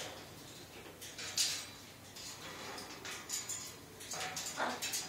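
A pet parrot making a few faint, short hissing sounds, one about a second and a half in and a couple more near the end.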